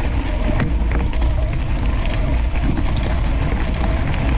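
Mountain bike tyres rolling over a gravel driveway, with scattered crunching clicks of loose stones. Under them runs a heavy, steady rumble of wind and road noise on a low-mounted action camera.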